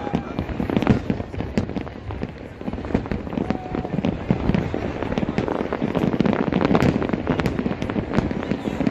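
Fireworks display: a dense, continuous barrage of overlapping bangs and crackles, growing busier from about halfway through.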